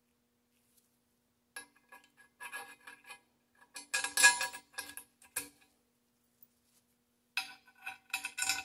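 Small steel hardware (bolt, nuts and washers) clinking and scraping against the steel plates of a grinder's tilt-arm bracket as a bolt is fitted by hand. Short bursts of light metallic clicks and rubbing start about a second and a half in, loudest around four seconds in, with another cluster near the end.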